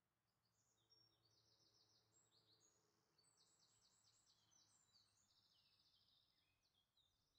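Near silence, with faint bird song: quick high chirps and trills through most of the stretch.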